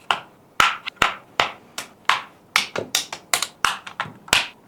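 A rapid, irregular run of sharp plastic clicks, about three a second: the snap-fit clips of a DJI Mini 5 Pro drone's top shell popping loose as it is pried open.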